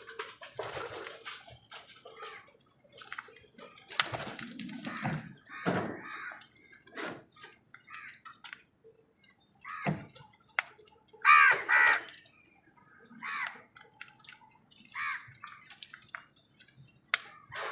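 Crows calling now and then, loudest in two caws about eleven seconds in, with scattered short clicks and taps between the calls.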